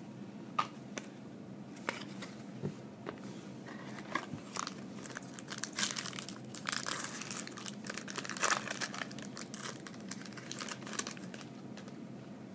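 A trading-card pack wrapper from a 2012 Upper Deck SP Authentic box being torn open and crinkled, with scattered small clicks and rustles; the crinkling is loudest a little past the middle.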